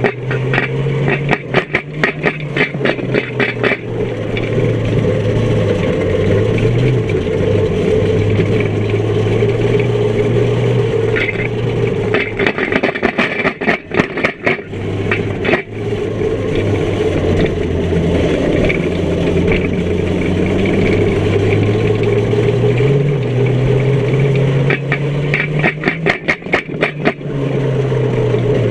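Small banger car's engine heard from inside the stripped cabin, running and revving up and down as the car drives around the track. Three spells of rapid clattering cut through it, near the start, about halfway, and near the end.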